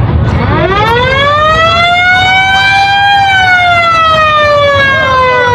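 Siren on a vintage military ambulance sounding one long wail. It winds up in pitch over about three seconds, peaks, then slowly winds back down.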